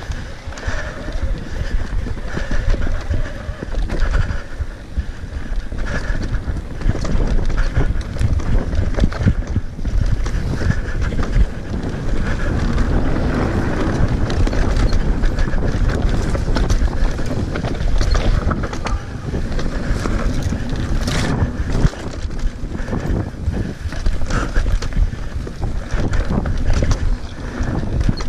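Mountain bike riding fast down a dirt singletrack: steady tyre rumble on the trail with frequent rattles and knocks from the bike over bumps, and wind buffeting the microphone.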